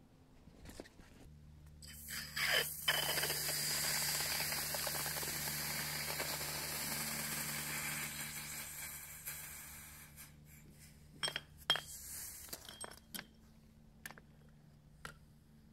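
Water sizzling on hot, freshly cast aluminum ingots: a hiss that sets in quickly, holds for several seconds and fades away. Near the end come a few sharp metallic clinks of steel tongs against the ingots.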